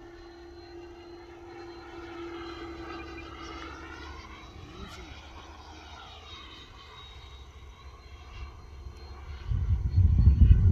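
Electric radio-controlled model airplane flying past, its motor whine steady at first and then swinging up and down in pitch as it passes. Near the end, gusty wind buffets the microphone with a loud low rumble.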